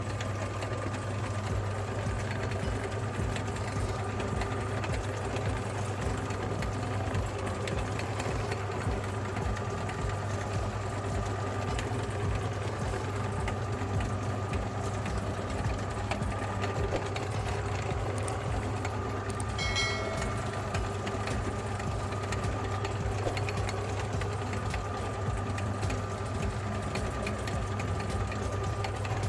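Electric meat grinder motor running steadily with a constant hum, with a brief high-pitched squeak about two-thirds of the way through.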